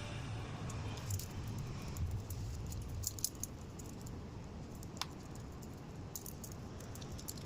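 Faint scattered clicks and light rattles over a low background rumble.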